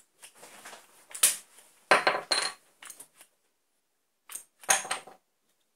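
Sharp wooden clicks and clatters from a wooden magazine-fed rubber band pistol being worked and fired at a standing wooden dowel, which is knocked onto a wooden desk. They come in a run over the first three seconds, the loudest about a second and two seconds in, then a short second bunch near the end.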